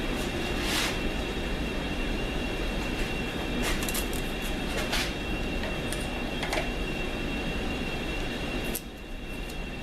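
1942 South Bend lathe running while turning down an AR15 bull barrel, a steady mechanical whir with a thin high tone and a few sharp ticks. The noise drops suddenly near the end.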